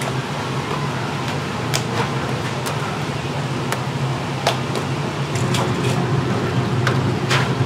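Street-stall kitchen noise: a steady low machine hum with scattered clicks and clinks of utensils against a stainless-steel batter bowl as chicken is worked in the batter. Near the end, battered chicken is bubbling in a deep fryer.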